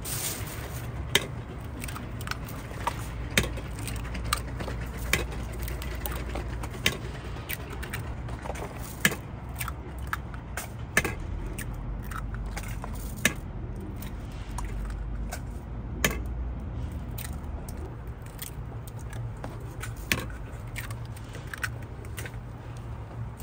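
Toast-stall cooking: a metal utensil sharply clinks against the griddle every one to three seconds, over a steady low hum.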